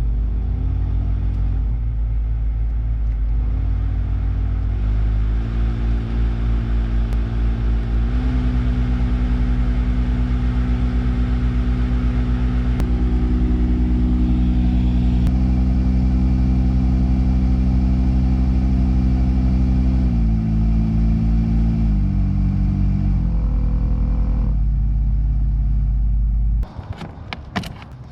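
Cabin blower motor of a BMW 5 Series F10 humming loudly. Its pitch steps up in stages, holds steady, then steps back down. This hum is the blower fault being diagnosed. The hum cuts off suddenly near the end, followed by a few clicks.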